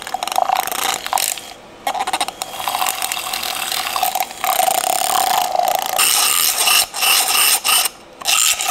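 Electric milk frother whirring as it froths a matcha, chai and oat-milk mix, with a steady mid-pitched hum that cuts out briefly several times.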